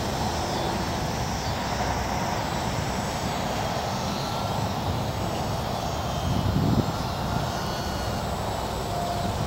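The electric motor and propeller of an E-flite UMX Yak 54 micro RC plane, whining faintly as the plane flies overhead, over a steady rushing noise. There is a brief louder low rumble about six and a half seconds in.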